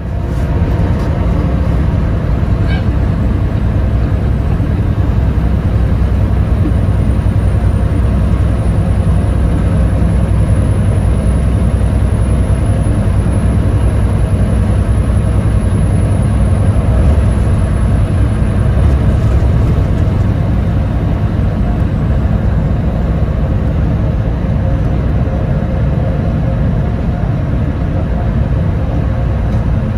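Kenworth semi truck's diesel engine and road noise heard from inside the cab while cruising on the highway: a steady low drone.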